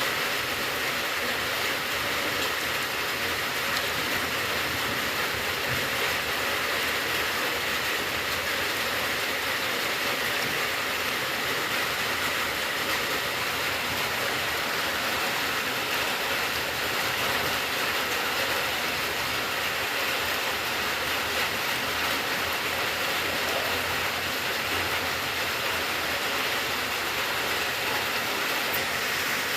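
Steady rain falling: an even hiss with no breaks or single drops standing out.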